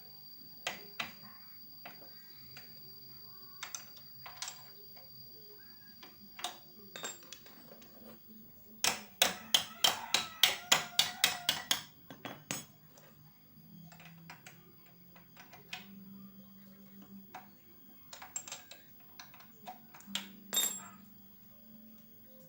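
Metal hand tools clinking and knocking against motorcycle parts during disassembly. About nine seconds in comes a quick run of about a dozen loud metallic strikes, roughly four a second, like hammer taps.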